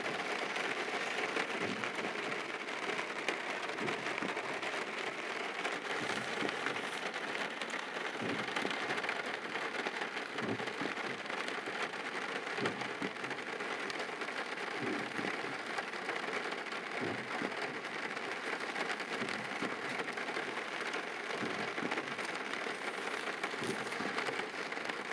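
Steady rain on the car's windshield and roof, heard from inside the cabin, with a soft low stroke about every two seconds from the wipers sweeping.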